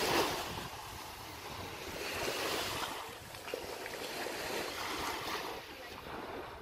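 Small waves washing up on a sandy beach, swelling and falling back about every two seconds, with wind buffeting the microphone.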